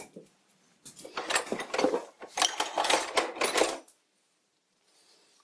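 Small metal tools and parts clinking and clattering against each other as they are rummaged through and handled, a quick run of clinks lasting about three seconds that stops abruptly.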